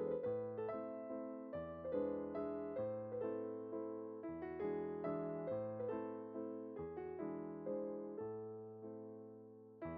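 Background music: a gentle piano tune of ringing chords over a low note that changes every second or two.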